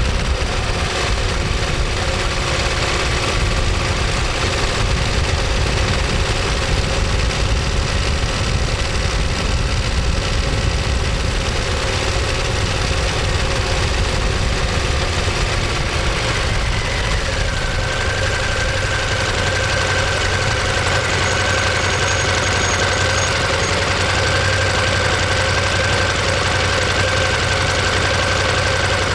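Ducati Monster 1200S L-twin engine and exhaust running. A little over halfway through it settles into a steady, even idle.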